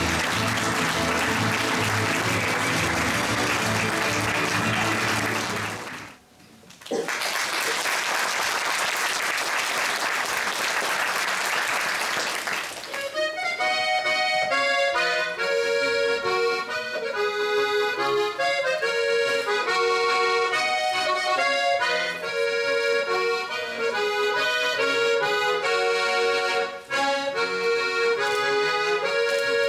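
Audience applause, first over the last of some music, then on its own after a short break about six seconds in. About thirteen seconds in, a piano accordion starts playing a solo tune with chords.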